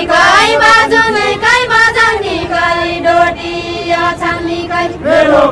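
A group of women singing a Far-Western Nepali deuda song together, their high voices holding one long steady note in the middle before starting a new phrase near the end.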